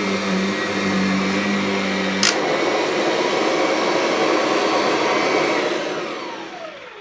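Kirby Sentria upright vacuum cleaner running on carpet, with a sharp click a little over two seconds in. Near the end the motor winds down with a falling whine as it is switched off.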